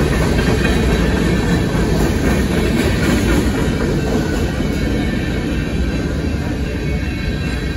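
Mixed freight cars of a manifest train rolling steadily past: a loud, continuous rumble of steel wheels on the rails, easing slightly near the end.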